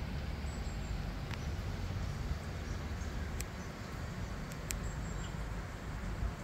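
Steady low rumble of background ambience, with a few faint sharp clicks, two of them close together late on.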